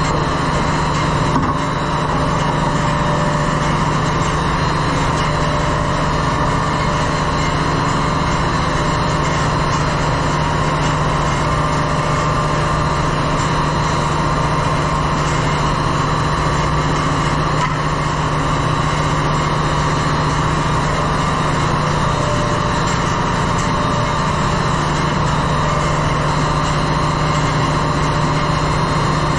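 Steady machinery noise of a ship's engine room: a constant low hum under an even hiss, with no change in level.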